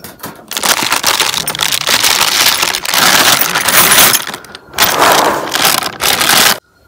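Crinkly plastic snack packet rustling loudly as it is handled, with small metal pieces such as bottle caps and washers clinking into it; the rustling stops abruptly near the end.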